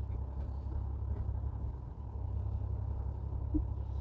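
Fishing charter boat's engine running steadily at low revs, a low rumble.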